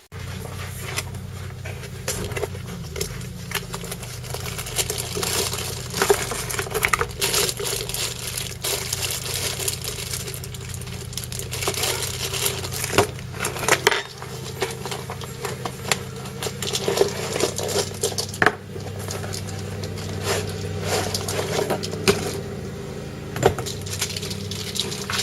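Irregular clattering, rattling and crackling of small hard objects and packaging being handled, over a steady low hum.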